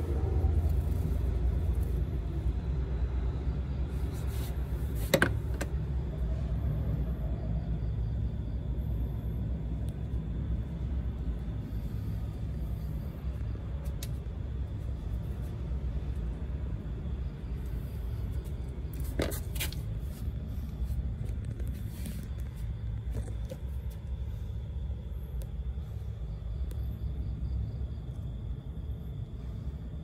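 Steady low rumble, with a sharp click about five seconds in and another about nineteen seconds in.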